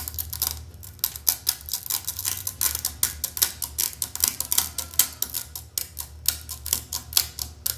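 Needle-nose pliers clicking and tapping on the rusted steel of an old Sears table saw's blade elevation shaft and its thin washer: many quick, irregular metal clicks, several a second, over a low steady hum.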